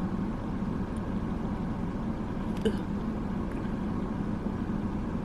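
Steady low hum inside a car cabin, with one faint click about two and a half seconds in.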